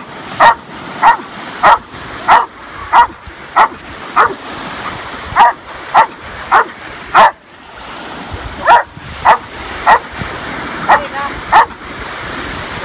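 A Belgian Malinois barks repeatedly in quick runs of about two barks a second, with a short pause about halfway through. Waves wash steadily on the shore underneath.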